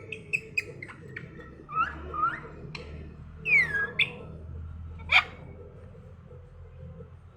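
Pet parrot calling: a string of short clicks and chirps, a falling whistle about three and a half seconds in, and loud sharp calls near four and five seconds.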